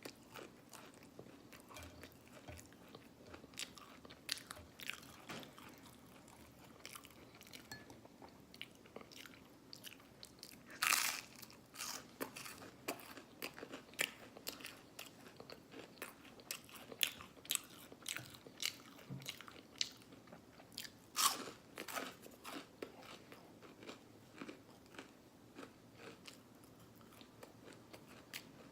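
Close-miked mouth sounds of a person eating waffles: steady chewing with many short wet clicks and lip smacks, and two louder smacks, one about a third of the way in and one about two-thirds in.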